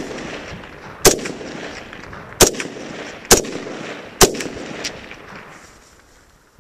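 Norinco SKS semi-automatic rifle firing four 7.62×39mm rounds about a second apart, each sharp crack followed by an echo that dies away.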